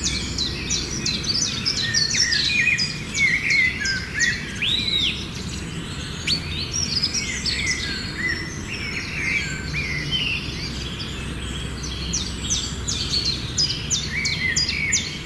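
Many small birds chirping together, quick high chirps overlapping one another, thinning a little midway and growing busier again near the end, over a steady low background noise.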